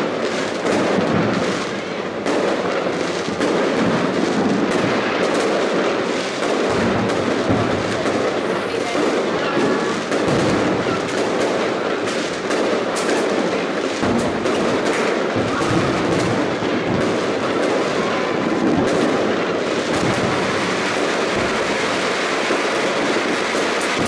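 Fireworks display going off without pause: a dense barrage of overlapping bangs and crackles from aerial shells and rockets bursting.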